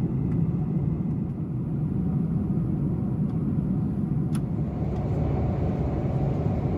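Steady low rumble of a Boeing 747-400's passenger cabin in cruise, engine and airflow noise, with a faint click about four seconds in.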